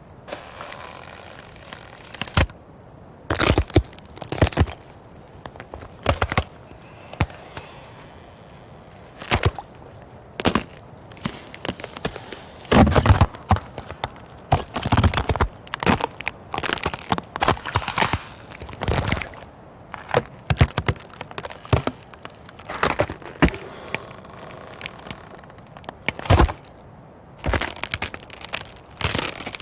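Ice cracking and breaking: a long series of sharp, irregularly spaced cracks and snaps, some single and some in quick clusters, with the densest and loudest run about halfway through. They sit over a faint steady background ambience.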